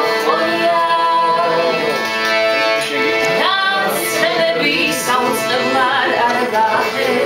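Piano accordion playing a tune of steady held chords, with a man's voice singing along over it.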